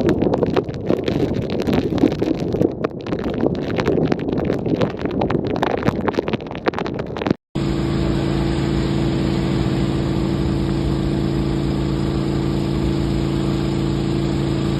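Wind and rain noise on the microphone, rough and full of small clicks. After a cut about halfway through comes the steady drone of a running vehicle engine with a low hum.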